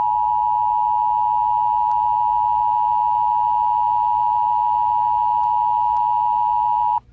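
Emergency Alert System attention signal: the steady dual tone of 853 and 960 Hz sounding together at one level, cutting off abruptly about seven seconds in.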